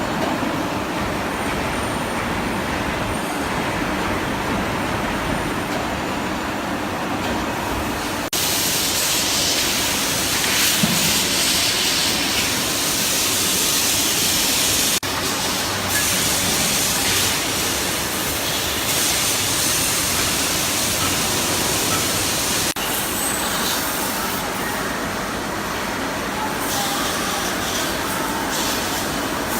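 Steady mechanical noise of workshop machinery running, an even hiss and rumble with no distinct strokes. It changes character abruptly about 8, 15 and 23 seconds in.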